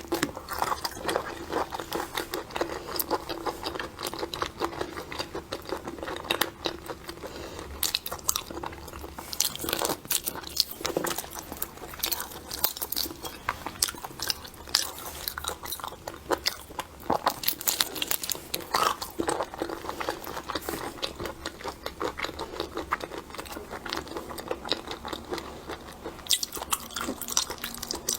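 Close-miked eating of seafood: steady biting, crunching and chewing, with rapid crackles throughout.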